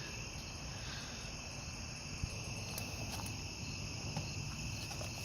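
Crickets chirping in a steady high chorus, with a few faint clicks about two to three seconds in.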